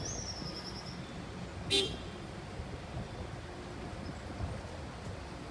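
Street traffic rumbling steadily, with one short car-horn toot at about two seconds in. A thin, high warbling tone is heard in the first second.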